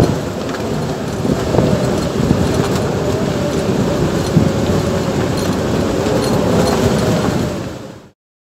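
Storm-force wind of 40 to 50 knots blasting across the yacht's deck and buffeting the microphone, a loud steady roar with a faint wavering howl in it. It cuts off suddenly about eight seconds in.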